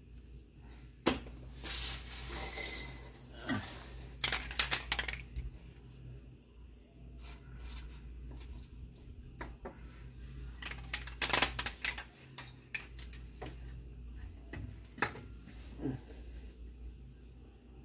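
An aerosol spray can hissing in short bursts: a longer burst about two seconds in, another about four seconds in and a brief one near eleven seconds, with light clicks and knocks as the can and hand touch metal parts under the truck.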